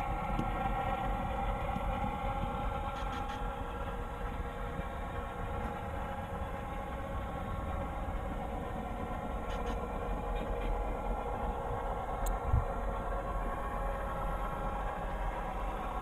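Diesel locomotive engine sound from an HO-scale F7's DCC sound decoder, running steadily at an even pitch, with a single low thump about twelve seconds in.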